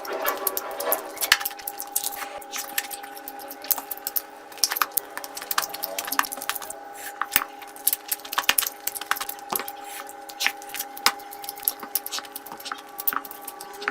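Close-miked eating: wet chewing and smacking with many short, sharp clicks, over a steady faint hum.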